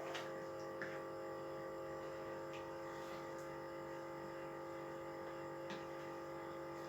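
Quiet background music made of steady sustained tones, with a few faint clicks.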